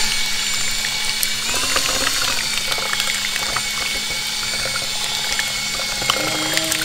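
Drill-driven mixing paddle whirring in a plastic cup of two-part expanding foam, a steady motor hum with small clicks and scrapes of the paddle against the cup, mixing the foam before it starts to react.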